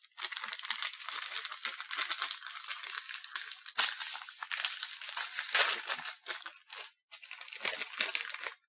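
Small plastic snack packet of vegetable crackers crinkling and crackling as it is handled and opened, with short pauses between bouts of handling.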